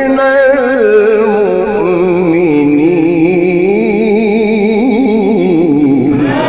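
A man's voice in melodic Qur'an recitation, holding one long ornamented line whose pitch wavers up and down, breaking off near the end.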